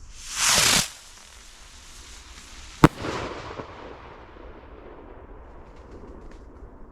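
A firework rocket launching with a loud whoosh that falls in pitch, then bursting with one sharp bang about three seconds in, followed by a short crackle and a few faint crackles later.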